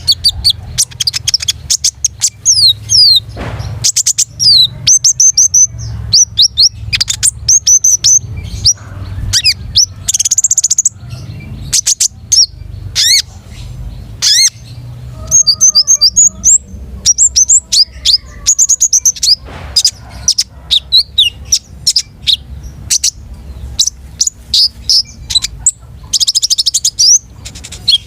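A konin songbird singing in full, vigorous song (gacor): rapid runs of high, sweeping chirps and trills with brief pauses between phrases, over a low background hum.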